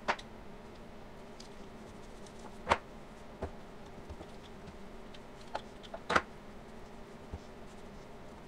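A few sharp knocks and clicks from handling a handheld dough roller and a plastic cutting board on a countertop while bread dough is rolled and shaped. The loudest knocks come about three and six seconds in. A steady low hum sits under them.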